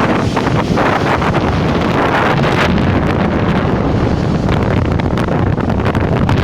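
Strong wind buffeting the microphone in irregular gusts, over the noise of sea surf.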